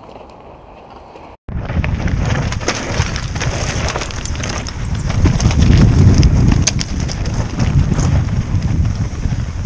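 Downhill mountain bike riding over a rocky, gravelly trail: a loud rumble of wind on the microphone with tyres crunching over stones and the bike rattling in many quick sharp clicks. It starts quieter, then cuts in loudly about a second and a half in.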